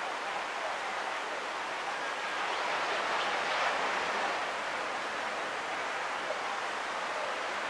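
Ocean surf washing on a sandy beach, heard as a steady hiss that swells briefly about halfway through.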